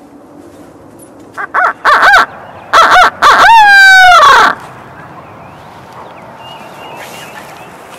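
Wild turkey gobbler calling loud and close: a few short notes about a second and a half in, then one long, fast-warbling gobble that falls slightly in pitch and ends about four and a half seconds in.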